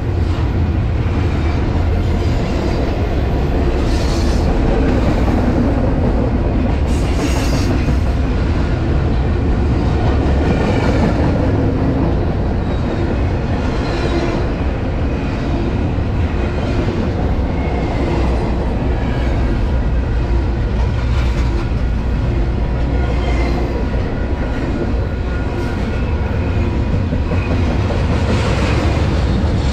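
Double-stack container well cars rolling past at speed: a steady, loud rumble of steel wheels on rail, with brief higher-pitched squeals now and then.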